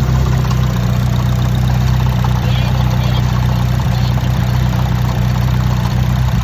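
Nissan 180SX engine idling steadily. The owners are chasing an odd noise from the engine bay, which they suspect is something loose or touching something.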